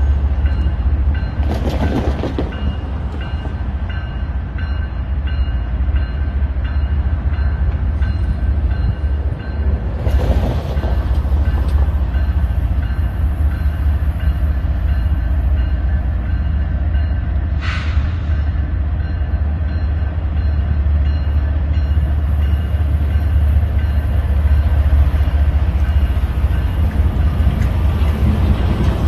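Steady low rumble of a Union Pacific GE Evolution-series (GEVO) diesel locomotive leading a work train, slowly growing louder as it approaches. A few brief, fainter sounds come through on top of it.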